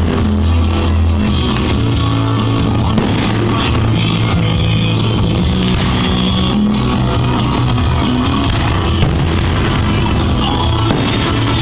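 Loud rock music playing steadily.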